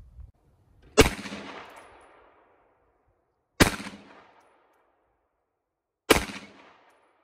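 Three pistol shots fired slowly, about two and a half seconds apart, each followed by a short echo: test shots to check the red dot's windage adjustment while zeroing.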